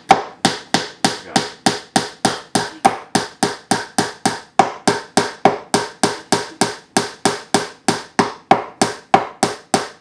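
Claw hammer tapping a nail into a wooden birdhouse box, light strikes in a steady, rapid rhythm of about four a second.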